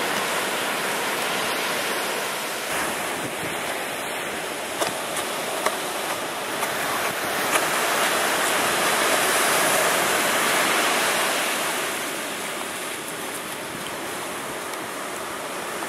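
Ocean surf breaking and washing in, a steady rushing that swells around the middle and eases off again, with wind on the microphone and a few faint knocks.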